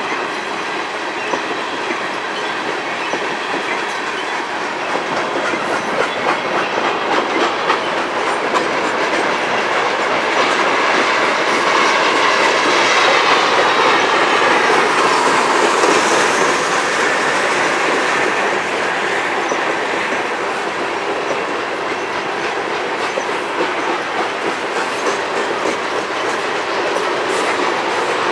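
Union Pacific grain train's freight cars rolling past, steel wheels clicking steadily over the rail joints. The rumble grows louder towards the middle and then eases a little.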